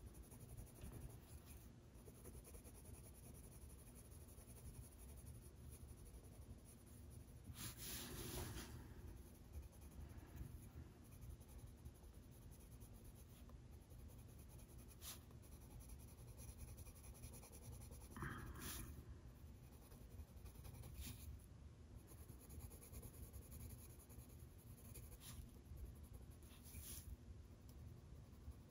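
Colored pencil being worked on paper in faint scratching shading strokes, with a couple of slightly louder rustles along the way.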